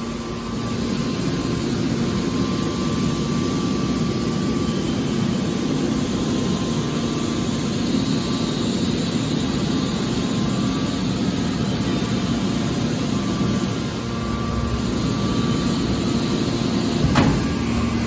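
Hydraulic power unit of a scrap-metal car baler shear running steadily as its press cylinders move, with a steady hum and a single knock near the end.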